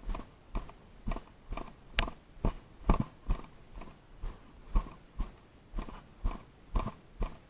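Footsteps of someone walking at a steady pace, a bit over two steps a second, with a single sharp click about two seconds in.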